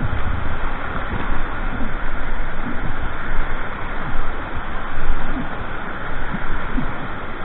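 Whitewater churning below a weir's sluice gates: a loud, steady rush with frequent low thumps of water splashing on the microphone.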